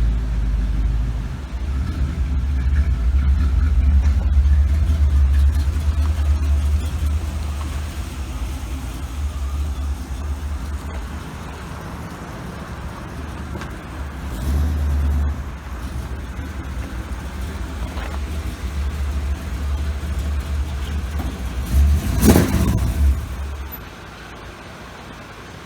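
A motor vehicle running, heard as a deep, uneven rumble. A brief loud rush comes about 22 seconds in, and the rumble falls away a couple of seconds later.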